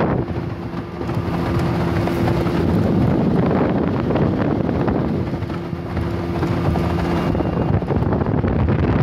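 Boat's outboard motor running at speed across open water, a steady engine drone under heavy wind buffeting on the microphone.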